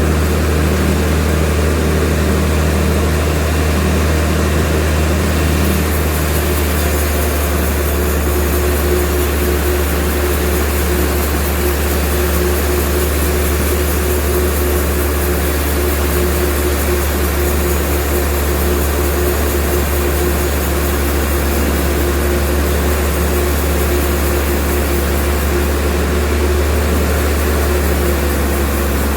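Sawmill machinery running steadily: a loud, deep, unbroken hum with a few held tones above it.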